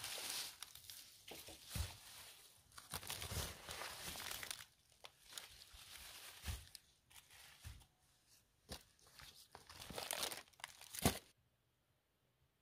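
Plastic bags crinkling and strawberry seedling leaves rustling as the bagged seedlings are handled out of a cardboard box and set down, with a few soft knocks. It stops abruptly near the end.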